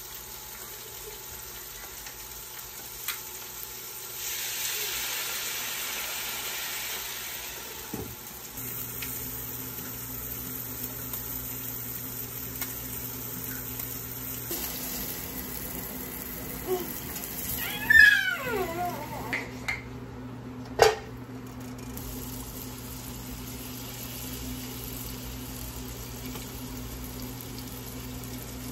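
Salmon fillets frying in oil in a pan, a steady sizzle that swells for a few seconds near the start. About two-thirds of the way through comes a short high gliding squeal, the loudest sound, and a few seconds later a single sharp clack.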